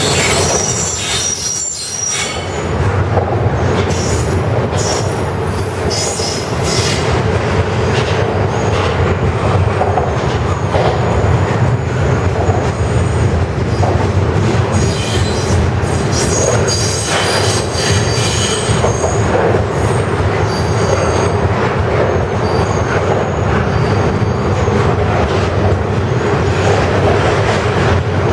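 Double-stack intermodal well cars of a freight train rolling past: a steady rumble of steel wheels on rail, with high-pitched wheel squeals that come and go, strongest about a second in and again around the middle.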